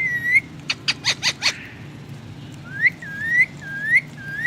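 Indian ringneck parakeet whistling: a dipping whistle, a quick run of short sharp chirps, then four rising whistled notes in a row.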